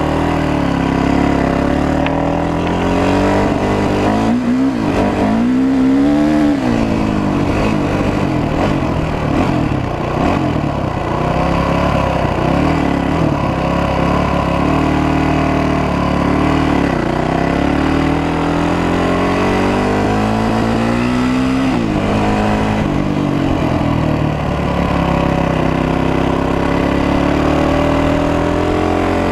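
Honda 450 dirt bike's single-cylinder four-stroke engine heard from on board while riding. Its pitch repeatedly rises and falls as the throttle is opened and closed, with sharp revs about five seconds in and again past the twenty-second mark.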